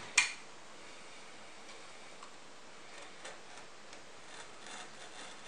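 A single sharp click just after the start, then faint ticks and light scraping as a snap-off utility knife slits the seal sticker on a cardboard CPU box.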